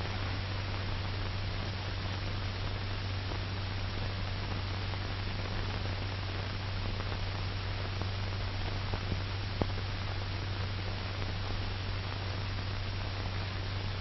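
Steady hiss and low hum of an old 1940s film soundtrack, with a few faint clicks a little over nine seconds in.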